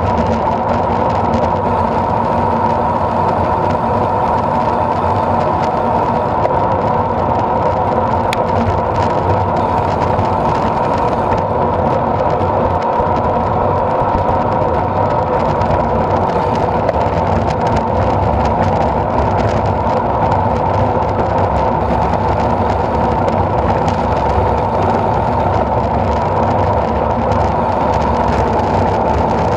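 Steady rush of wind over the microphone of a bike-mounted action camera, mixed with road bike tyres rolling on asphalt at riding speed.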